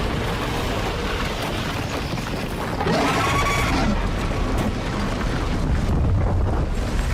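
Television drama sound effects: a dense, steady rumbling roar, with a drawn-out pitched cry that bends up and down for about a second, around three seconds in.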